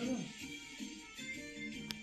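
Background music with plucked-string notes, and a single sharp click near the end.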